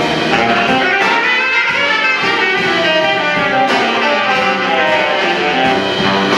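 Jazz big band playing live: saxophones, trumpets and trombones over a rhythm section of piano, upright bass and drums.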